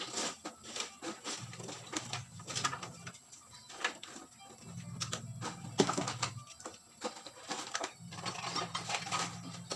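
Handling noise from scavenged recyclables being sorted: light knocks, rattles and plastic crinkles. Under it, a low sound about a second and a half long comes back about every three seconds.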